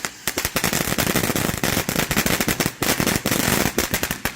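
Consumer fountain firework crackling: a dense run of sharp, rapid cracks that stops abruptly near the end.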